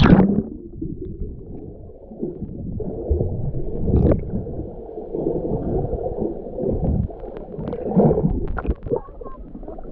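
Muffled underwater gurgling and sloshing of sea water as the microphone goes under, the sound dropping suddenly to a dull low rumble. Scattered dull knocks come through, loudest about four and eight seconds in.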